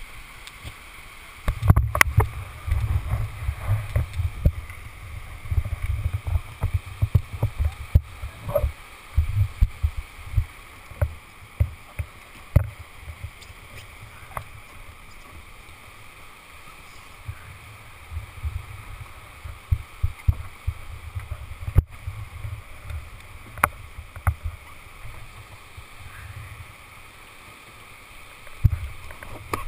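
Rushing river water hisses steadily in the background. Over it come bouts of heavy low thumps and scattered sharp knocks and rustles: the helmet camera and paddling gear being handled as the kayaker settles into a plastic whitewater kayak on a gravel bank.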